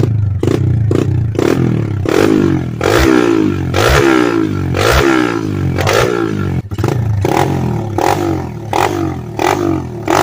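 A 125cc pit bike's single-cylinder four-stroke engine revved through its exhaust by repeated throttle blips, the revs climbing and falling back each time. About two-thirds in it turns into quicker, shorter blips on a second pit bike.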